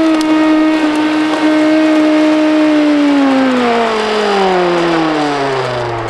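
Sharp Twin Energy vacuum cleaner's motor running with a steady whine, then winding down, its pitch falling steadily over the last three seconds.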